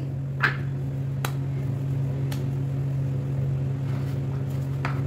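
A steady low machine hum, with a few light taps and knocks as dough is handled at a stone rolling board: one about half a second in, two more soon after, and one near the end.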